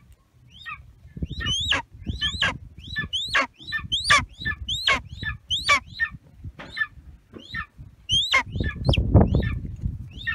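Young golden eagle calling: a long series of short, high, sharp yelps, about two or three a second, each rising then falling in pitch. A low rumbling noise on the microphone swells near the end.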